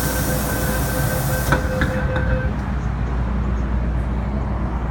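MTR M-Train subway car pulling out of a station. A repeated beeping tone and a hiss stop within the first two seconds, with a single clunk about a second and a half in, leaving the train's low running rumble as it starts to move.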